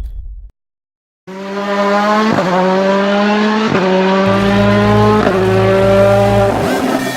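Rallycross car engine at high revs, accelerating through the gears: the note creeps up and drops sharply at each shift, four times in quick succession.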